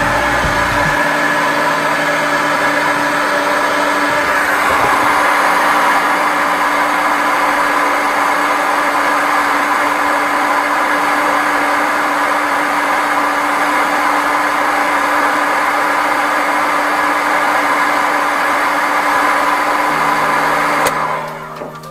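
Handheld electric heat gun running steadily, its fan giving a steady whine over a rush of blown air; it shuts off near the end.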